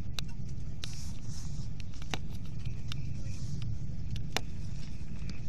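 Steady low rumble of a Hyundai Rotem Intercity+ electric train running at speed, heard inside the carriage. A few sharp clicks and ticks are scattered through it.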